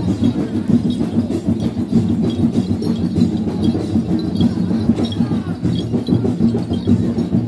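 Procession music of rebana frame drums playing a busy, steady beat with light jingling, the rhythm a Sayyang Pattu'duq dancing horse steps to.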